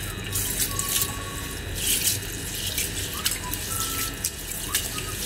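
Basmati rice and green gram (mung beans) being washed by hand in a glass bowl of water: fingers swishing and rubbing the grains, giving irregular splashes and sloshing.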